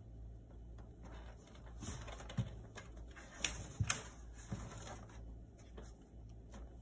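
Cats shifting and rolling about, faint: soft rustling with a few light clicks and three short, low thuds, between about two and five seconds in.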